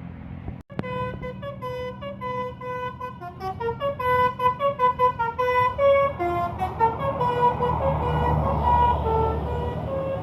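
Basuri musical bus horn playing a quick melody of short notes, which begins about a second in, over a bus engine running; the engine rumble grows louder about seven seconds in.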